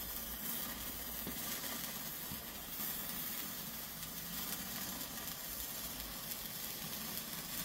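A Weco Zauber Lichter hand-held firework stick burning, its spark-throwing head giving off a steady sizzling hiss.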